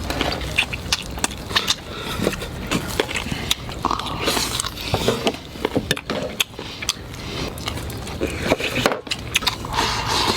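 A person gnawing and chewing braised chicken feet close to the microphone, with many sharp crunches and clicks as the teeth work through the crunchy cartilage and small bones.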